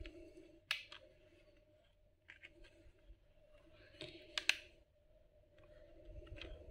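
Quiet handling of a cooking pot: a few light clicks and taps as fingers grip its rim and tilt it, with a sharper pair of clicks and a brief rub about four and a half seconds in, over a faint steady hum.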